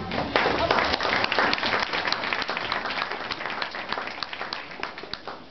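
Audience applauding, many hands clapping at once, loudest at first and gradually dying away over about five seconds.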